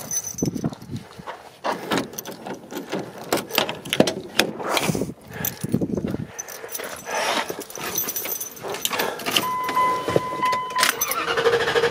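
Footsteps, handling of a pickup truck's door and keys jangling, then a steady warning tone for about a second and a half. Near the end the Dodge Ram 1500 V8's starter begins cranking the engine, which is slow to catch.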